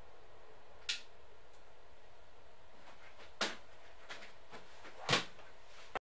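Faint steady hiss with a few soft clicks or knocks, the clearest about a second in, midway and about a second before the end; the sound then cuts off abruptly.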